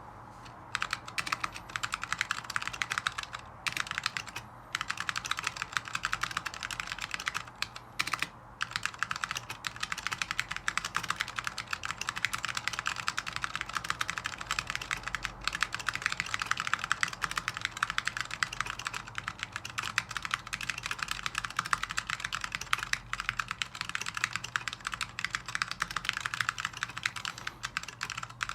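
Typing on a mechanical keyboard with vintage Alps SKCM Brown switches in an FR4 plate: a rapid, continuous stream of key clicks, with a few short pauses in the first eight seconds.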